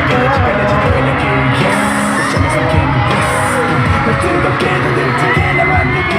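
Live K-pop concert performance: loud pop music with a heavy beat and singing.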